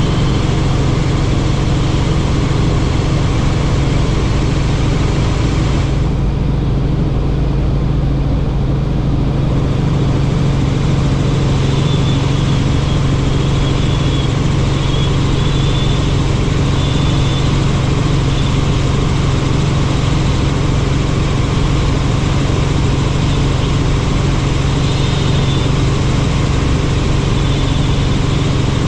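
Helicopter in flight: the steady drone of its engine and rotor with a constant low hum and a hiss above it. The hiss thins for a few seconds about six seconds in.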